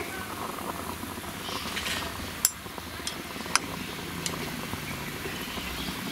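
A wire spider strainer full of fried banana bondas clinking against the rim of the iron frying pan as it drains, a few sharp metal clinks about a second apart, over a faint hiss of hot oil.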